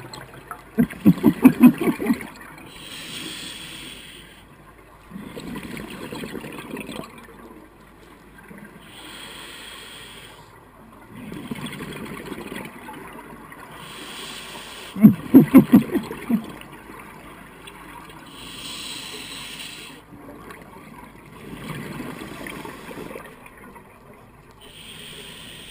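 Scuba diver breathing through a regulator. A hiss on each inhale alternates with a burble of exhaled bubbles, every few seconds. Two of the exhales, about a second in and a little past the middle, are louder and choppier bursts of bubbles.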